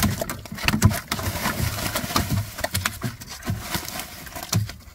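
Freshly caught snakeheads and an eel-like fish thrashing on a plastic sack and the wooden floor of a dugout canoe: a rapid, irregular run of slaps and knocks, with short low sounds now and then.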